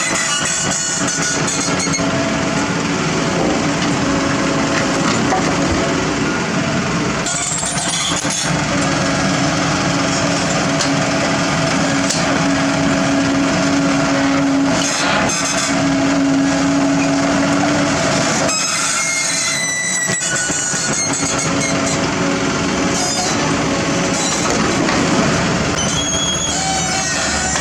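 Heavy construction machinery running: steady engine noise with a held tone through the middle stretch and a few knocks and clanks.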